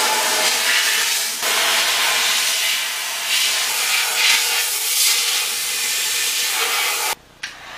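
Compressed-air blow gun hissing steadily as it blows into a steel fuel tank's sender opening to drive out the last rinse water, cutting off suddenly near the end.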